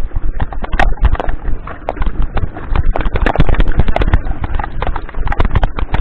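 Mountain bike clattering over a loose rocky trail: a dense, irregular run of sharp knocks and rattles as the tyres hit stones and the bike jolts.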